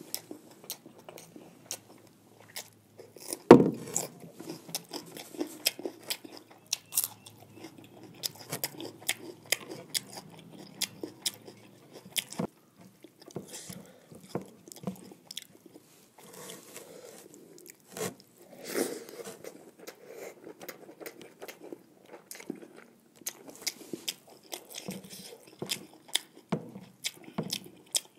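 Close-up mouth sounds of a person chewing fried buffalo tongue and rice: steady wet chewing and crunching with many small clicks. An occasional louder knock stands out, sharpest about three and a half seconds in.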